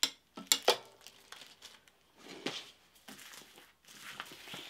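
About three sharp metallic knocks within the first second as the metal knee-lift bar is handled and set down against the sewing machine, then plastic packaging bags crinkling and rustling.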